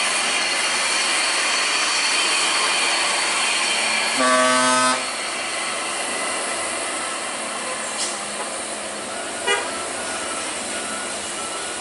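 Steady traffic noise of heavy trucks and cars running up a steep mountain road, with one vehicle horn blast of just under a second about four seconds in. A few brief sharp sounds follow later.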